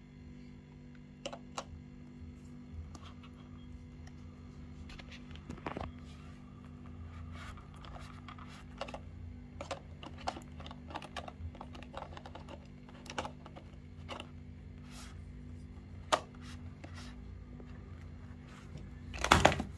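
Hands handling a camera and its packaging: scattered light clicks and taps, with a louder rustling burst near the end, over a steady low hum.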